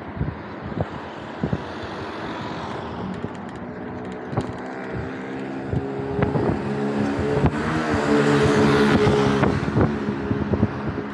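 A motor vehicle's engine hum rises, passes close by and fades, loudest about eight to nine seconds in. Irregular knocks and rattles from a bicycle being ridden run throughout.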